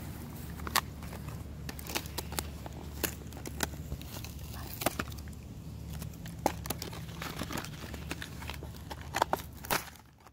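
Cardboard and plastic toy packaging being handled and torn open, with irregular sharp crinkles and tears, over a steady low hum.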